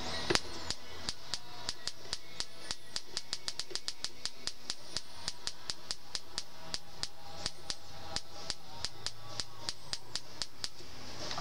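High-voltage sparks snapping across a spark plug's gap, fired by a Lucas ignition coil as the distributor is worked by hand: a long string of sharp clicks, irregularly spaced at about two to five a second, the first the loudest. Each snap is a good spark from the coil.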